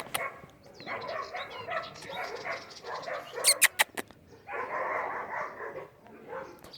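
Dogs barking in repeated bursts, with a quick run of sharp clicks or knocks near the middle.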